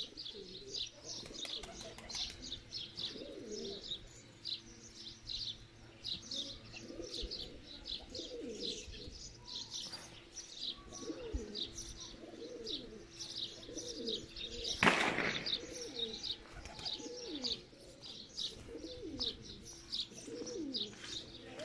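Domestic pigeons cooing over and over, with constant high chirping of other birds behind them; a short loud flurry of wing flaps about fifteen seconds in.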